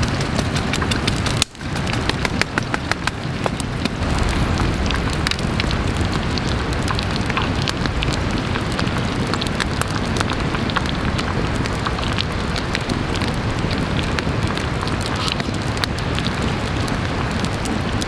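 Wood fire crackling with many small sharp pops, over a steady sizzle of spinach and bacon frying in a small skillet set in the flames. The sound drops out briefly about a second and a half in.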